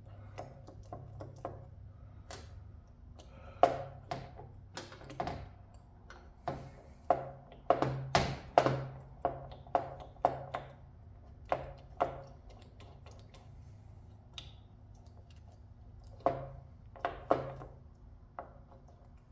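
Irregular metallic clicks and clunks from a Harley-Davidson four-speed transmission being shifted by hand through its gears, the shift mechanism snapping each gear into place. Some strikes ring briefly, over a faint low hum.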